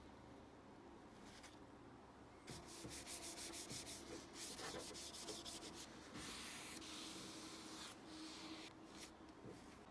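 Acetone-soaked paper towel rubbed over the metal base of an old tree grafting machine to clean it, a dry scratchy rubbing in quick back-and-forth strokes that starts about two and a half seconds in.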